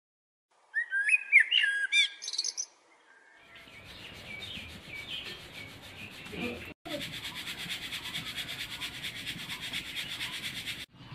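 A bird chirps a quick run of rising and falling notes for about two seconds. Then a steady hissing crackle of oil sizzling in a wok over a wood fire, broken by two brief dropouts.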